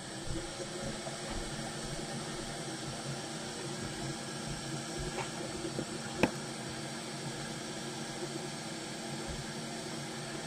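Steady hiss of workbench background noise with a faint hum, and a few small clicks, the sharpest and loudest about six seconds in.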